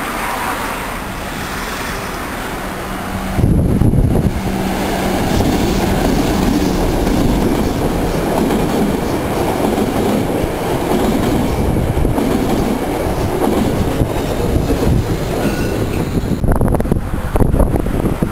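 Northstar commuter train's bilevel passenger coaches rolling past on yard tracks, the wheels clattering over the rails. The sound grows suddenly louder a few seconds in.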